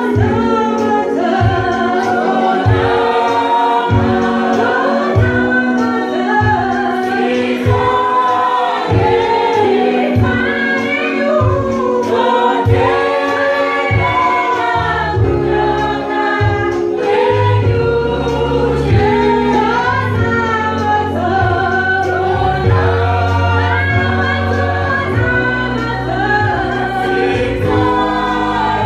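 Mixed gospel vocal group singing a Shona song in harmony over a steady beat. A bass line comes in about halfway through.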